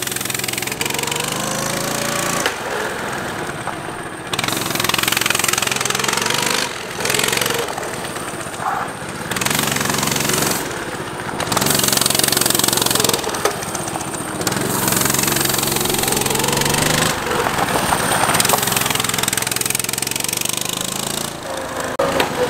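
Coleman CT200U-EX mini bike's small single-cylinder four-stroke engine run hard, its pitch rising and falling again and again as the rider opens and eases the throttle around the course.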